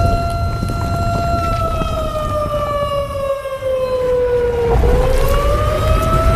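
A siren holding a steady tone that slowly sinks in pitch, then about five seconds in breaks off and winds back up to its first pitch, over a continuous low rumble.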